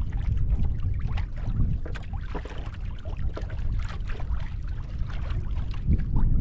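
Wind buffeting the microphone in a small boat at sea, a steady low rumble with scattered small knocks and splashes.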